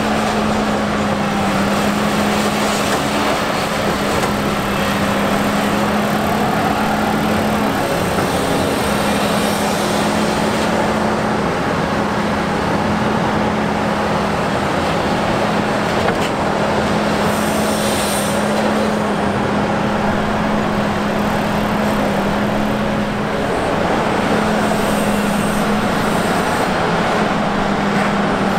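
Volvo EC950F excavator's diesel engine running steadily under load with a constant drone while it digs and loads articulated dump trucks. A brief hiss sounds about eighteen seconds in.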